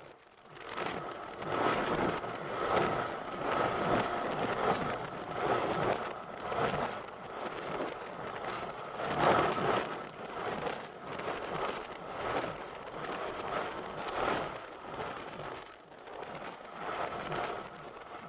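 Wind buffeting the microphone of a motorcycle-mounted camera at road speed, a rough noise that swells and eases every second or so, with the motorcycle's engine running steadily underneath.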